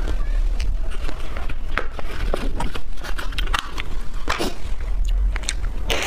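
Close-miked mouth sounds of a person eating a soft ice cream bar: scattered wet chewing clicks and smacks, with a bite into the bar near the end, over a steady low hum.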